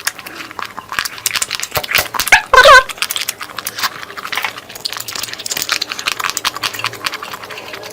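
Close-miked eating: wet chewing, smacking and clicking mouth sounds, with one brief, loud pitched sound about two and a half seconds in.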